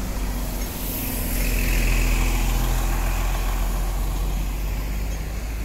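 Heavy diesel engine of a bus running close by, a deep rumble that swells to its loudest about two seconds in and then eases, over steady road traffic.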